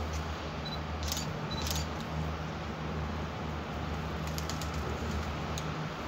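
X72500 diesel railcar approaching at low speed with a steady low engine hum. A few brief high-pitched squeaks come about a second in, again shortly after, and in a quick cluster after four seconds.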